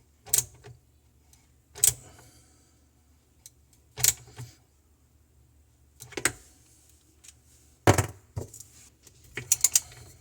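Separate sharp clicks and metallic clinks every second or two, with a quick rattling cluster near the end: tools and drain-pipe fittings being handled while the disposal's drain pipework is fitted.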